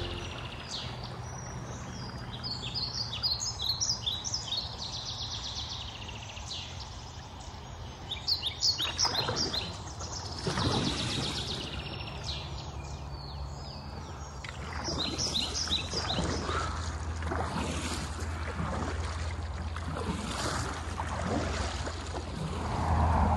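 Songbirds chirping in quick repeated series, several times, over a steady low hum and the water noise of a small boat moving along a canal.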